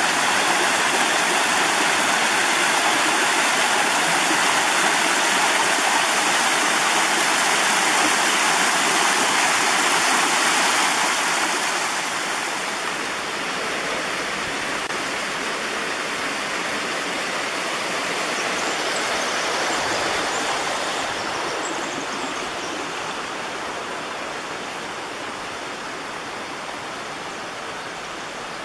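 Creek water cascading over rocks in a steady rush, loud for about the first ten seconds, then dropping off around twelve seconds in and growing fainter toward the end.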